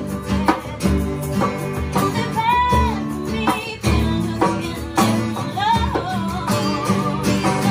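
Live acoustic jam: women singing a pop song over two strummed acoustic guitars, with a hand drum struck in a steady beat.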